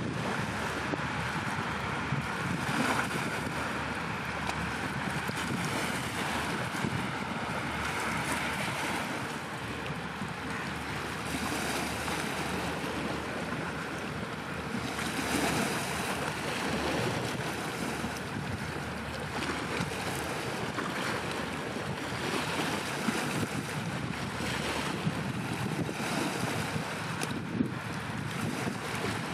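Wind buffeting the microphone over choppy water, a steady rushing noise that swells in gusts now and then.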